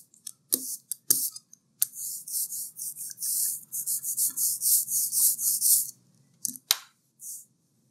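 Rubber brayer rolling back and forth through tacky white printing ink, a sticky crackling hiss with each stroke, about three to four strokes a second. The strokes stop about six seconds in, followed by a sharp knock and one last short stroke.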